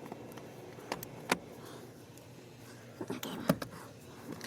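A few sharp clicks and taps of hard plastic interior trim being handled and pressed into place: two about a second in and a quick cluster around three seconds in.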